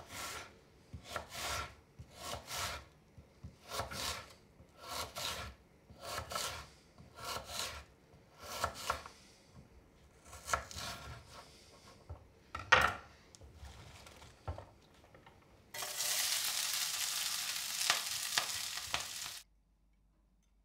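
A spoon scraping round a cooking pan, stirring in rhythmic strokes about once a second, often doubled, with one sharper knock about two-thirds through. Then a loud steady hiss for about three seconds that cuts off suddenly.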